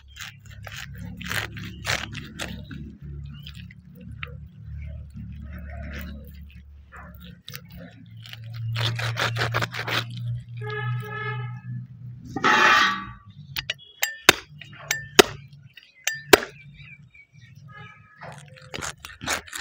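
Kitchen knife cutting raw chicken into pieces on a wooden log chopping block. Sharp knocks and cracks come as the blade goes through bone and hits the wood, more often and sharper in the second half, over a low steady hum.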